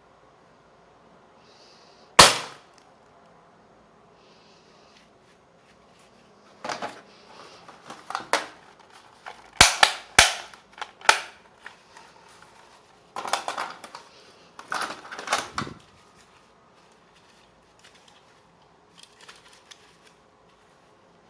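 Plastic toy guns snapping and clicking as they are worked and fired: one loud sharp snap about two seconds in, then scattered single and paired snaps, and a cluster of rattling clicks past the middle.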